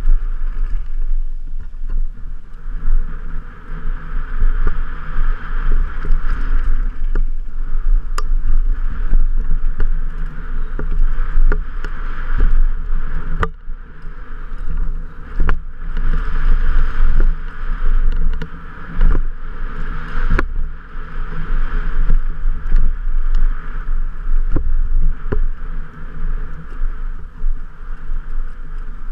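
Specialized Enduro Comp 29 mountain bike riding fast down a dirt trail: wind buffeting the camera microphone, tyres rumbling over packed dirt, and sharp knocks and rattles from bumps, jumps and landings.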